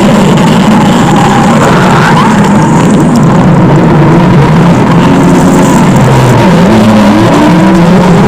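Stomach growl sound effect: a very loud, continuous low rumbling growl whose pitch wavers and slides up and down.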